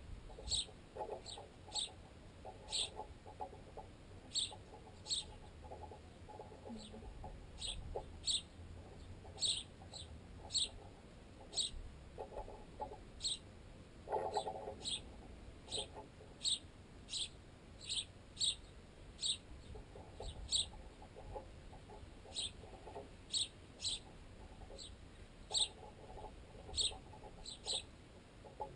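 Sparrows chirping in short high notes, about one or two a second, over clusters of rapid tapping from beaks pecking at a piece of baguette. The tapping is carried unnaturally loud through the tensioned guy line and the tent pole the microphone is mounted on.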